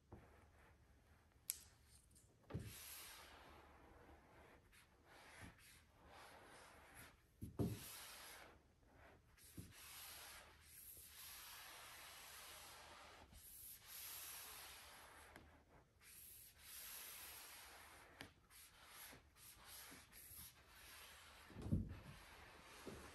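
Microfiber cloth rubbed over a matte black vinyl decal on a car bonnet, pressing the vinyl down: faint swishing strokes that come and go, with a few soft knocks, the loudest near the end.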